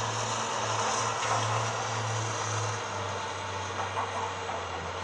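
Heavy diesel machinery at work unloading logs: a steady engine hum with a few faint knocks.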